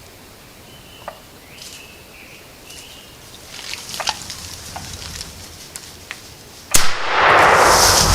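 A few faint clicks, then about seven seconds in one sudden, very loud shotgun blast from a 12-gauge fired with a 3.5-inch shell, followed by loud continuous noise.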